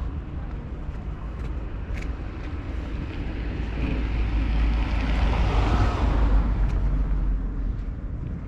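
A car passing by on the street, its tyre and engine noise swelling to a peak about five to six seconds in and then fading, over a steady low rumble.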